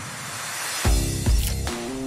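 Background rock music with pitched instrument lines and two loud bass hits about a second in.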